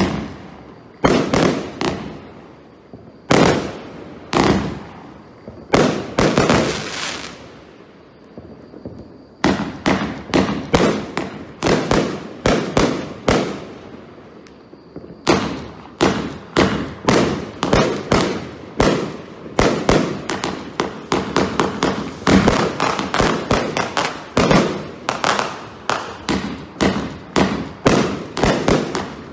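Firework barrages firing shot after shot, each a sharp bang, a few trailing off into crackle. The shots come a second or more apart at first, then from about a third of the way in as a fast, steady run of about two bangs a second.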